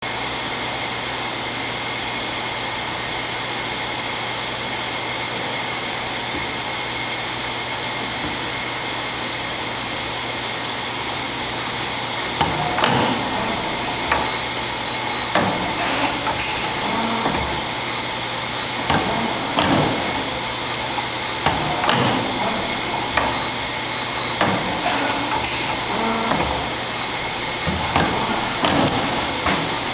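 Simco CNC-635RW CNC spring-forming machine running: a steady mechanical hum for about the first twelve seconds, then sharp clacks and knocks from the radial tool slides as it forms and cuts wire, coming in clusters every two to three seconds with short high whines between.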